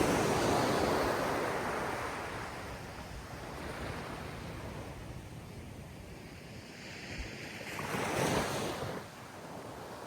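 Waves surging and washing in, a big surge at the start that slowly falls away and another about eight seconds in.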